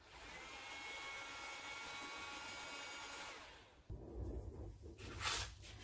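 Electric heat gun running with a steady fan whine, then fading out about three and a half seconds in as it is switched off. Soft handling knocks follow, with one louder knock near the end.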